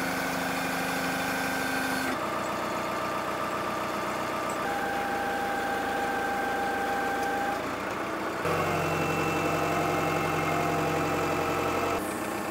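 Telehandler's diesel engine running steadily, its tone changing abruptly a few times.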